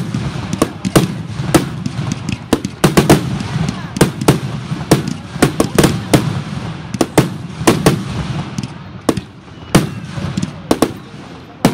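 Fireworks display: aerial shells bursting in a rapid, irregular string of sharp bangs, several a second at times, thinning out near the end.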